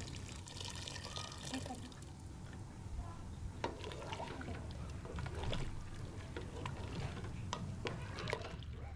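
Boiling water poured into a pot of chicken pieces for the first couple of seconds, then a wooden spoon stirring the broth, with short scrapes and knocks against the pot.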